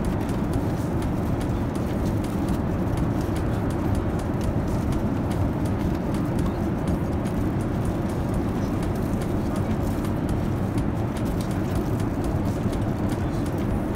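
Airliner cabin noise in flight: a steady low rumble of the engines and rushing air.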